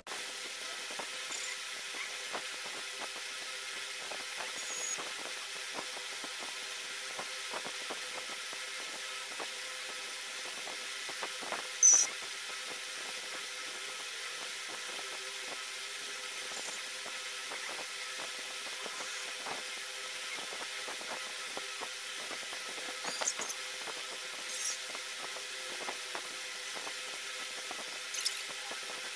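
Faint scattered clicks over a steady low hum. A short, high squeak about twelve seconds in is the loudest moment.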